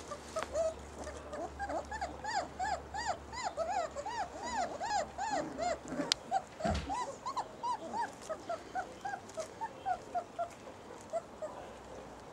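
Basset hound puppies whimpering and yelping in a quick string of short, high cries that rise and fall in pitch, about three or four a second, thinning out toward the end. A single soft thump about halfway through.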